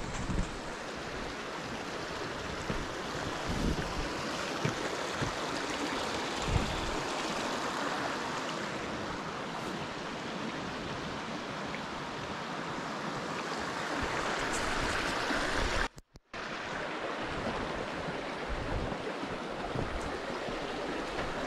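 Mountain stream or cascade rushing steadily, a constant white-water hiss. It swells slightly, then cuts out for a split second about three-quarters of the way through before returning.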